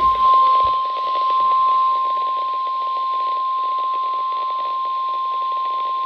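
NOAA Weather Radio 1050 Hz warning alarm tone: one steady, loud, high single tone over receiver static. It signals that a warning broadcast is about to follow, here a snow squall warning.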